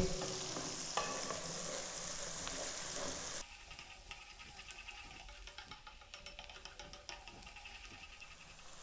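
Sliced onions frying in hot oil in an aluminium kadai, sizzling steadily as they are stirred with a wooden spoon while being browned to light golden. About three and a half seconds in, the sound cuts to a fainter stretch of scattered ticks and crackles.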